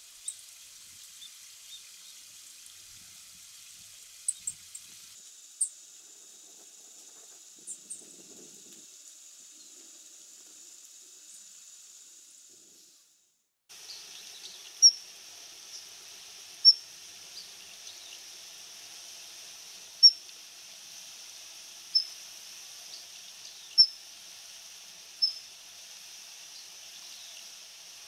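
Black-faced bunting giving thin, very high 'tsi' calls, a few short notes often in pairs. About halfway through, a Daurian redstart takes over, giving a sharp, high single 'hiit' call every one and a half to two seconds.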